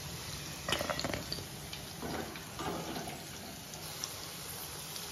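Hot oil bubbling in a pan of deep-frying prawn pakodas as they are scooped out on a perforated skimmer, oil dripping back into the pan, with a few brief louder splashes about a second in and again two to three seconds in.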